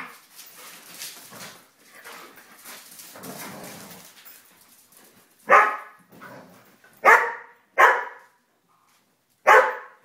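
A dog barking in play: four loud, short barks in the second half, two of them close together. Before them, quieter shuffling and scuffling sounds of the dogs moving about.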